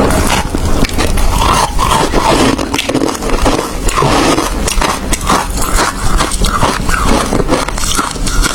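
Ice being bitten and chewed close to the microphone: a continuous run of loud, irregular crunches and cracks.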